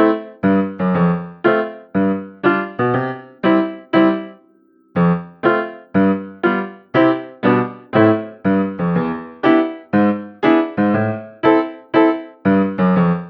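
Background music: a bright keyboard tune of short, quickly fading notes at about two a second, with a brief pause about four and a half seconds in.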